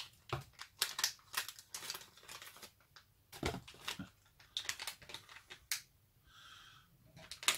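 Plastic blind-bag packet of a Funko Pint Size Heroes figure crinkling and tearing as it is opened by hand, giving a run of irregular crackles and snaps.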